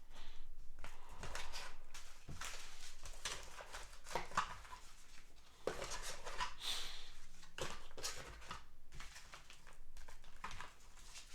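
Product packaging being handled: irregular rustling, light knocks and scrapes of sachets and a small box being moved about.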